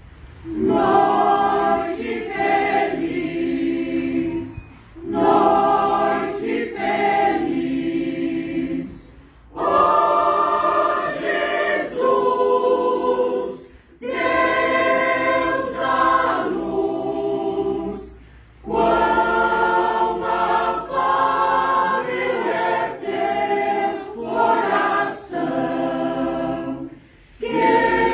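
Mixed choir singing a Christmas song, in phrases of a few seconds each with short breaks between them, largely unaccompanied.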